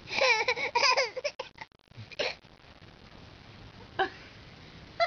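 Baby's high-pitched voice: a quick run of short, wavering laughing squeals in the first second and a half, then a few single short sounds.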